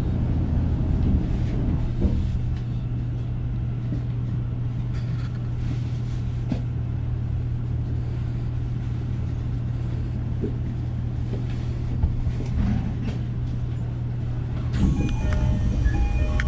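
Train interior noise in the driver's cab: a steady low hum and rumble with scattered knocks and clicks. Near the end a few short electronic chime tones sound.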